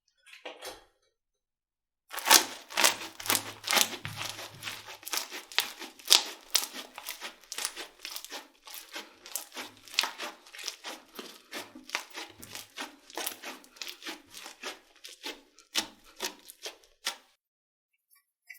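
Slime being squeezed and pressed by hand, a dense run of crackling and popping that starts about two seconds in and stops shortly before the end.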